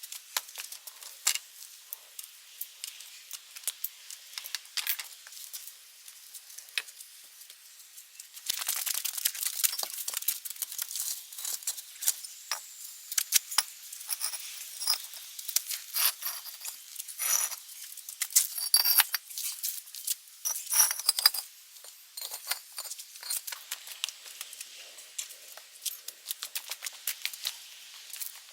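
Rustling, crinkling and many sharp little clicks from close-up hand work with garden plants and materials, busier and louder from about a third of the way in.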